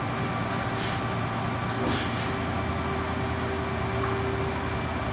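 Steady low engine drone on a ferry's vehicle deck, joined by a steady hum about two seconds in, with short hisses about one and two seconds in.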